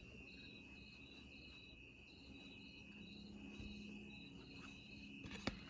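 Faint insect chirping, like crickets: a high pulse repeating about three times a second over a steady high tone. A single soft click comes near the end.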